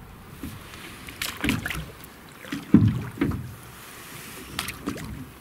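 Small rowboat being rowed with wooden oars: three strokes about a second and a half apart, each with a knock and a swish of water.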